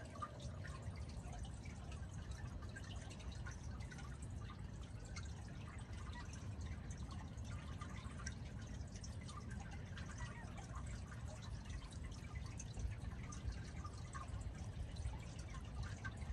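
Water pouring through a pond outlet from an upper pond into a lower one: a steady low rush with many small drips and splashes over it.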